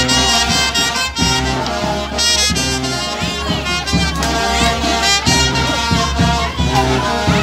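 Brass band music playing, horns over a steady rhythmic beat.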